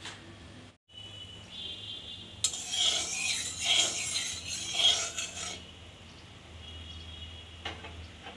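Spatula scraping across the bottom of a metal kadai, spreading mustard oil, in about three strokes over some three seconds.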